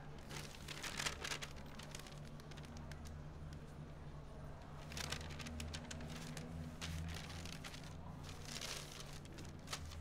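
Newspaper pages rustling and crinkling as they are turned and folded, in several short bursts over a low steady hum.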